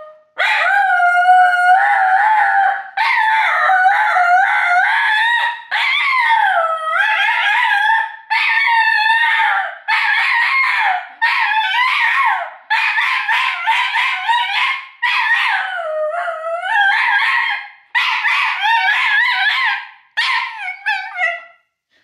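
A cockapoo howling: about ten long howls in a row, each one to three seconds long and rising and falling in pitch, with short breaths between them. The howling stops shortly before the end.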